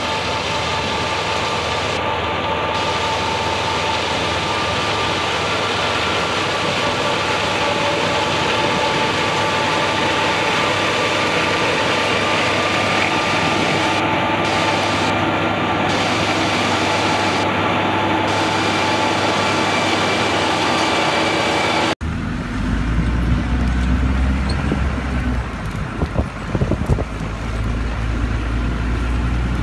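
Tractor engine and a front-mounted sugar beet topper running steadily as it works through the beet rows: a dense, even machine noise with several steady whining tones. About twenty seconds in it cuts off abruptly to a distant tractor pulling a wide harrow, a duller, lower engine drone.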